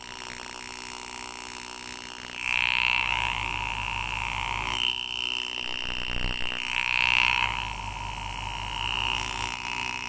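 Power engraving handpiece buzzing steadily as its graver cuts bright-cut petals into a silver-overlaid copper rivet. The tone and stroke rate shift every two to three seconds as the cut changes.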